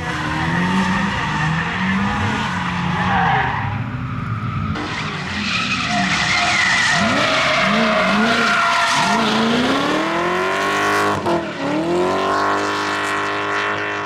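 Drift cars sliding around a track: engines revving up and down with the throttle while the tyres screech. About two-thirds through, an engine revs steadily upward, drops briefly, and climbs again.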